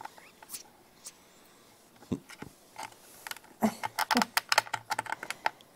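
A quiet run of small clicks and taps, a few scattered early on and a quick cluster between about three and a half and five seconds in.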